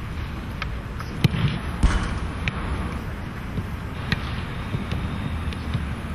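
Football being kicked and struck in training: a handful of sharp thumps at uneven intervals, the loudest about two seconds in, over a steady low rumble.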